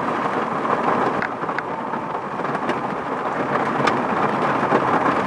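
Steady heavy rain pouring and pattering on a car, with a few sharper single taps scattered through it.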